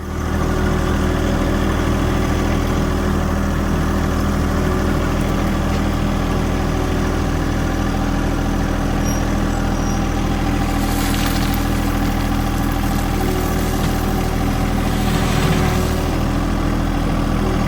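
Tractor engine running steadily at close range, a constant low drone with no change in speed.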